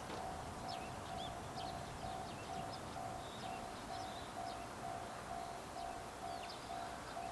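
Japanese railway level-crossing warning bell ringing steadily, an electronic two-tone ding repeating about twice a second, signalling that a train is approaching.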